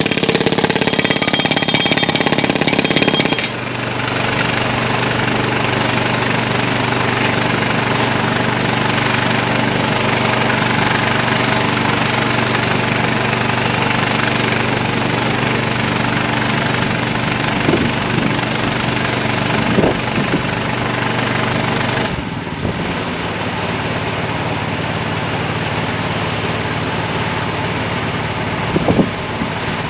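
Engine running steadily with a fast, rattling hum. An extra hiss rides over it for the first few seconds and then drops away. A few short knocks sound later on.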